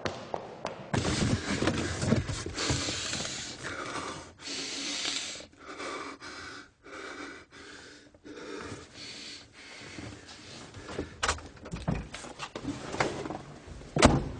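A person breathing hard in loud gasps and pants, long heaving breaths giving way to shorter chopped ones. A few sharp clicks come near the end, the loudest just before the end.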